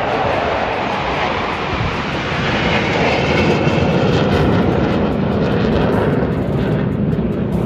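Military jet passing overhead, its engine noise loud and steady, swelling slightly about halfway through.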